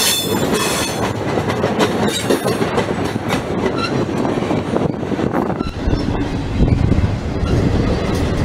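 A double-stack intermodal container train rolls past close by, its steel wheels clattering over the rail joints. A thin, high wheel squeal sounds in the first second or so, and a deeper low rumble builds from about six seconds in.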